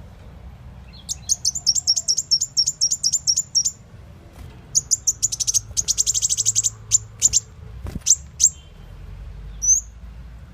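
Muncang (kolibri wulung) sunbird call: two long runs of rapid, sharp, high chirps, then a few separate notes and a short rising whistle near the end.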